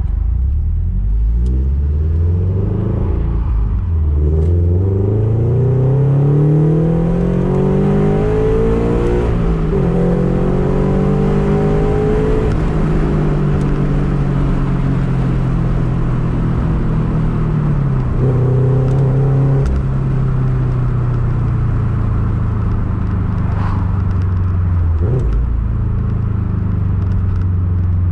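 Subaru BRZ's flat-four engine heard from inside the cabin, its note climbing steadily under acceleration, dropping in pitch at a gear change about nine seconds in and climbing briefly again. It then settles to a steady cruise, with another drop in pitch at a shift about eighteen seconds in.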